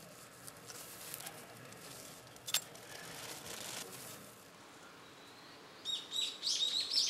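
Faint rustling with a sharp click or two. Then, about six seconds in, a songbird starts singing a quick run of high, repeated chirps.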